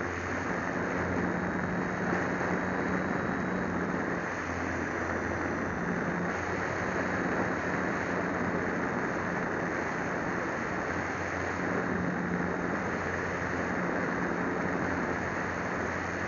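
An RC plane's motor and propeller droning steadily in flight, heard through a small onboard camera's microphone, mixed with rushing air. The drone's pitch and strength shift slightly a few times.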